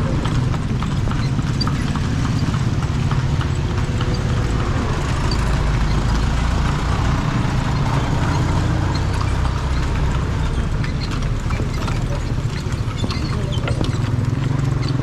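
Kalesa horse's hooves clip-clopping steadily on the street as the horse-drawn carriage rolls along, over a steady low rumble.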